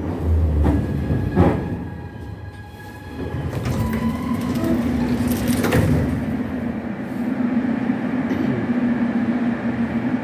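Vintage metro train car coming to a stop at a station: wheel clacks and knocks as it slows, faint squealing tones as it halts, then a steady low hum from the standing car, with a sharp clunk about six seconds in.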